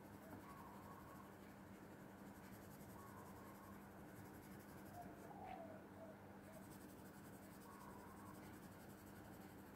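Faint scratching of a blue watercolour pencil colouring on textured watercolour paper, over a low steady hum.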